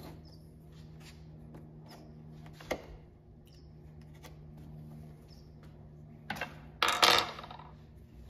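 A knife drawn along a steel straightedge, cutting a leather belt strap on a plastic cutting board: faint slicing and scraping with small ticks. Near the end comes a louder clatter of tools being set down on the bench.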